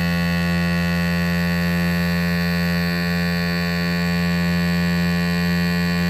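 FoodSaver FreshSaver handheld vacuum sealer running on a jar-sealer attachment fitted to a mason jar lid, a steady electric motor hum as it draws the air out of the jar.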